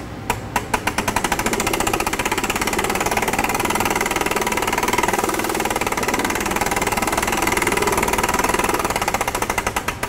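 Hand-cranked star wheels of a rotary bottle-filler's bottle-handling section turning, with a fast mechanical clicking. The clicking starts as a few separate clicks, runs quickly and steadily, then slows and stops near the end.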